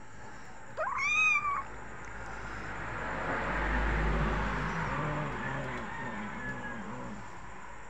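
A cat meows once about a second in, a short call that rises and falls in pitch. Then a rushing noise swells and fades over several seconds.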